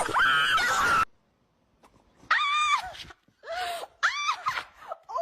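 A series of short, high-pitched wailing cries, each rising and then falling in pitch. They start about two seconds in, after a noisy stretch cuts off suddenly and a brief near silence.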